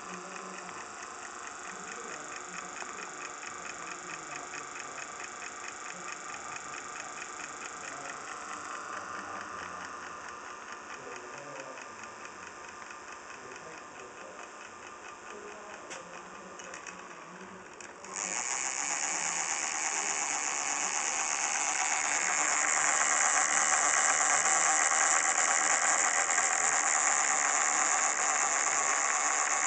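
Miniature dynamo driving a scale model drill press through a flat belt, running with a fast, even mechanical clicking. About 18 seconds in the sound suddenly gets louder and hissier, and it grows louder again a few seconds later.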